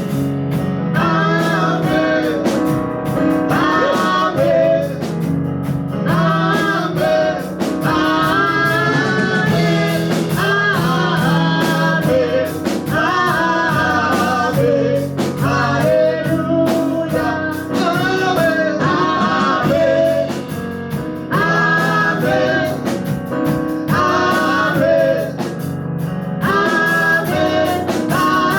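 Live gospel praise and worship song: voices singing over a band with guitar.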